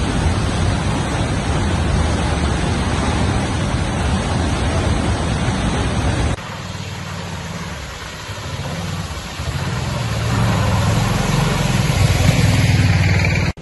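Floodwater rushing loudly across a road while a bus engine runs as the bus drives through it. About six seconds in the sound cuts abruptly to another vehicle's engine and the splash of its wheels through floodwater, which grows louder near the end.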